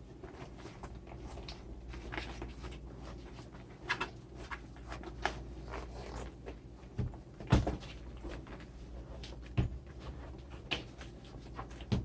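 A stitched leather handbag being handled and turned right side out: irregular creasing, rustling and small knocks, with a few louder thumps, the loudest about seven and a half seconds in.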